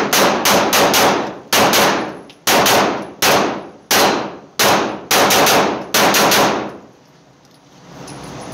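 Semi-automatic 9mm pistol fired rapidly in an indoor range: a long run of close to twenty shots in quick strings, each with a short echo. The firing stops about six and a half seconds in.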